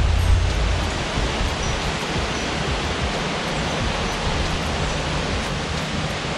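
Steady hiss of wind across the microphone, with low rumbling buffets that ease off about half a second in.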